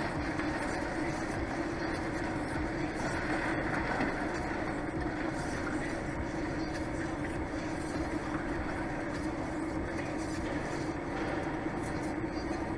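Steady running noise heard inside a truck cab: an even drone of engine and road noise with a constant low hum, no changes or distinct events.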